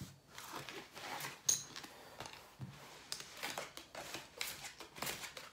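Playing cards and poker chips being handled on a felt blackjack table: the used hand gathered up and bets settled, making irregular soft clicks and taps.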